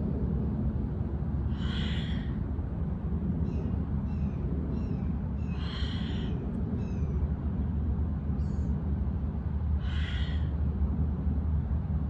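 A steady low rumble of outdoor background. Over it come a person's audible breaths, a noisy rush about every four seconds, with short high bird chirps in between.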